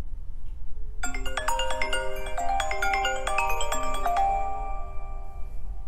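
iPhone 11 Pro Max ringtone playing a repeating melody of chiming notes, starting about a second in. The phone is ringing for an incoming call, a sign that its cellular service works again after the no-service repair.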